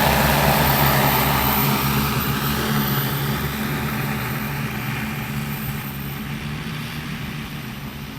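Multirotor agricultural spraying drone (15-litre tank) in flight, its propellers humming steadily and fading gradually.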